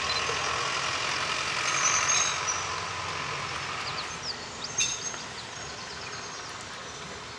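Small steam tank locomotive moving slowly with a rake of wagons, a steady hiss and rumble. There are a few short high squeaks around the middle and a single clank about five seconds in.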